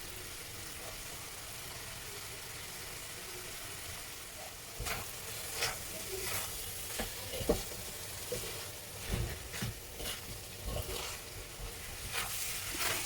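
Chicken and vegetable murtabak filling sizzling in a pan over a fairly high flame. From about five seconds in, a spatula stirs and scrapes through it, with scattered short clacks against the pan.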